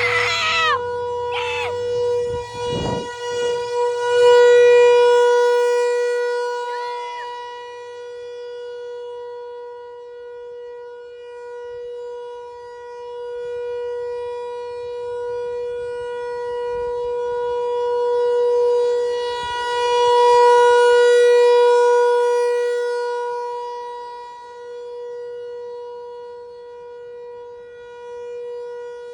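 Outdoor warning siren sounding a steady tone for its scheduled noon test, its loudness slowly swelling and fading, loudest a few seconds in and again about two-thirds of the way through. A few brief high chirps are heard in the first seconds.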